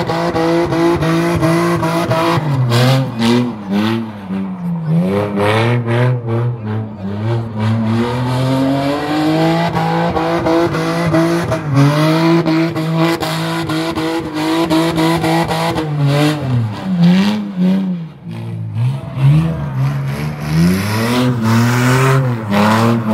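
BMW E36 3 Series saloon drifting: its engine is held at high revs for long stretches, the pitch dropping and climbing again a few times as the throttle is worked, over a hiss of spinning, sliding tyres.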